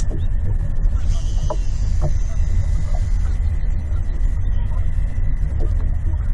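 Wind buffeting the microphone in a steady low rumble, with faint scattered ticks over it.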